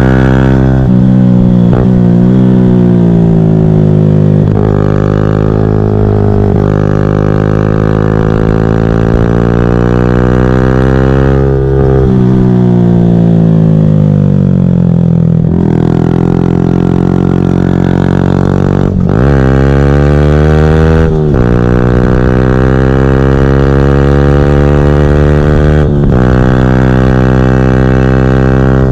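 2014 Yamaha YZF-R125's 125 cc single-cylinder four-stroke engine, with a full GPR Furore exhaust without catalyst or baffle, revving hard under way. Its pitch climbs for several seconds, then drops sharply at each gear change, several times over.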